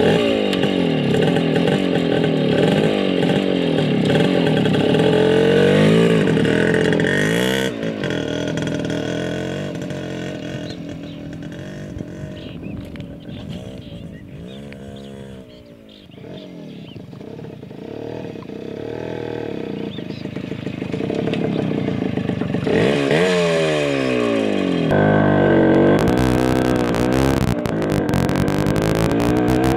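Kawasaki Bajaj KB100 two-stroke single-cylinder motorcycle revving and pulling away, its pitch rising and falling through the gears. The engine note fades as the bike rides off, then grows loud again. In the last few seconds it is heard close up while riding, with wind buffeting the microphone.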